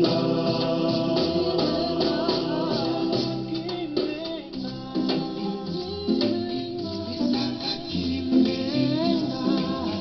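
Music: a song with a singing voice over instruments and a steady shaken-percussion beat.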